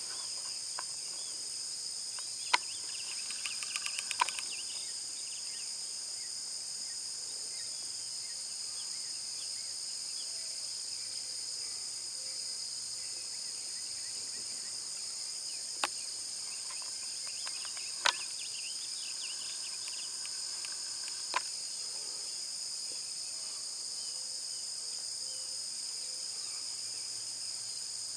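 A steady, high-pitched chorus of insects drones without a break. Several sharp clicks stand out over it, and two short spells of chirping come in, about three seconds in and again around eighteen seconds.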